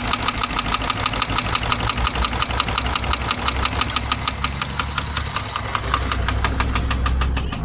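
Subaru flat-four boxer engine running with a rapid, evenly spaced knock from inside the engine, a knock bad enough that the owner weighs repairing it against replacing the engine. A hiss joins about halfway through.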